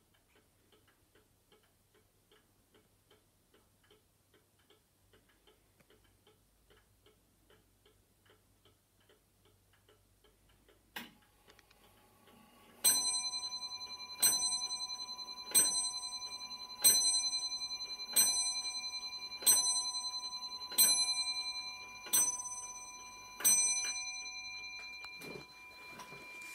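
Georgian bracket clock ticking quickly and faintly, then a click, then nine strikes on its bell about 1.3 s apart, each ringing on and fading: the clock striking nine o'clock.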